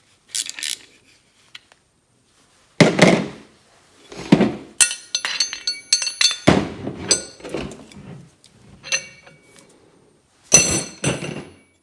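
Metal-on-metal clinks and knocks as a steel pickle fork is worked against a bolt threaded into a stuck check valve in a cast Ford flathead fuel pump body, prying the valve out. A string of sharp, irregular knocks, several with a short metallic ring after them.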